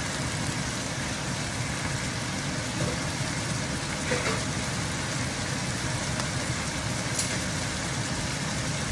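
Sliced meat with garlic sizzling steadily in a hot nonstick wok.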